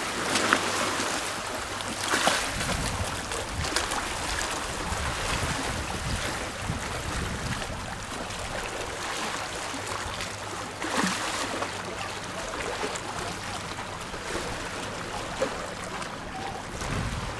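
Small sea waves lapping and splashing against shoreline rocks, with a few louder washes, under wind rumbling on the microphone.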